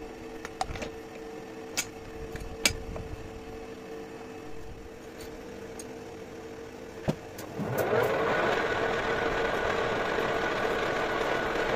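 Metal lathe with a steady hum, and a few sharp metallic clicks as a tool holder is handled and set in the tailstock. About eight seconds in, the spindle runs up and a steady, louder machine noise sets in as the hexagonal broach point works in the bore of the spinning workpiece, cutting a hexagon hole.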